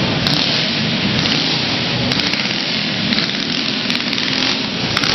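Go-kart engines running on an indoor track: a dense, steady din with no single engine standing out.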